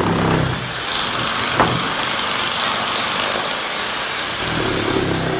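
Heavy demolition machinery's engine running, with a steady hiss through the middle and a single sharp knock about a second and a half in.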